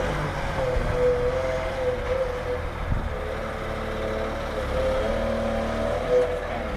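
Meclift heavy forklift running steadily: a low engine rumble under a wavering whine.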